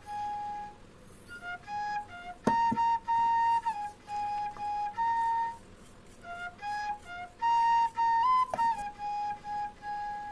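Background flute music: a solo flute playing a slow melody of long held notes with short breaks between phrases.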